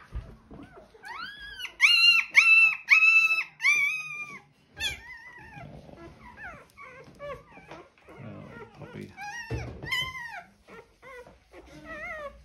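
Newborn German Shorthaired Pointer puppy crying out during tail docking and dewclaw removal. A quick run of about five loud, high-pitched squeals starts about a second in, followed by shorter, fainter yelps and whimpers.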